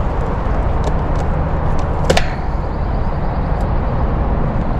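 Steady low noise of running machinery with a single sharp metallic click about two seconds in.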